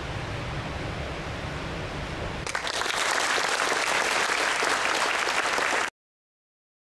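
Audience applauding, breaking out abruptly about two and a half seconds in over a low steady room hum, and cutting off sharply about a second before the end.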